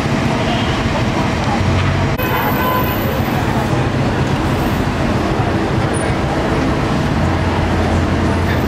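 Steady city street traffic noise, with people's voices mixed in.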